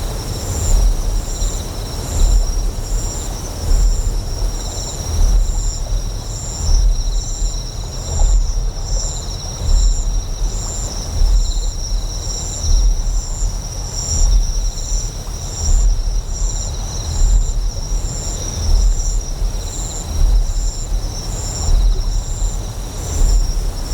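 Deep, resonant generator hum that swells and fades about every second and a half, under high, steady insect chirping with a faster pulsed chirp on top and an even hiss of flowing water.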